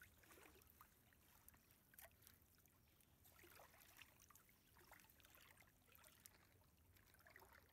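Faint sloshing and trickling of shallow water with small scattered splashes, from wading and hauling a fishing net through it.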